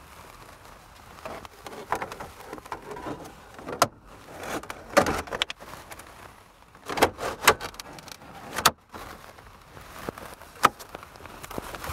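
Dash cap being lowered onto a truck dashboard and pressed into place by hand: irregular scrapes and rubbing of the cap against the dash, with several sharp clicks and knocks.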